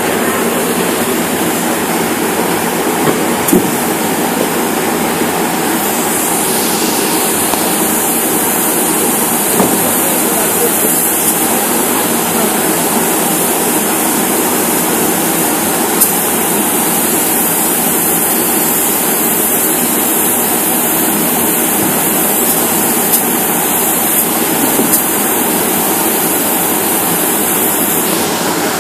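Spray polyurethane foam gun spraying foam into wall cavities: a loud, steady rushing hiss, with a few faint clicks.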